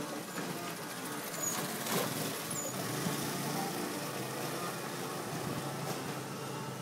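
A motor scooter's small engine passing close by on the street, loudest about two seconds in.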